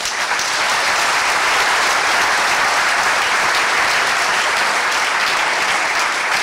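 Large indoor audience applauding, a steady dense sound of many people clapping.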